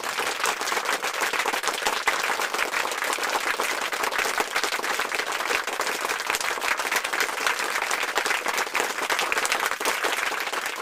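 Crowd applause, a steady dense patter of clapping hands that begins to fade near the end.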